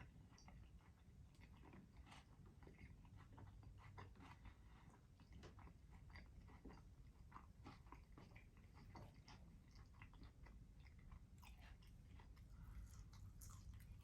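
Faint, close-up chewing of food in the mouth: irregular soft wet clicks and smacks.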